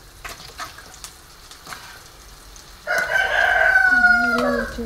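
A rooster crows once about three seconds in: one long call that falls in pitch at the end. Before it, a spatula scrapes faintly against a nonstick pan as a thick curry is stirred.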